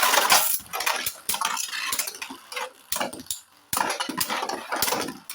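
Two 3D-printed Beyblades spinning and clashing in a plastic stadium: a steady spinning whir broken by many sharp clacking hits.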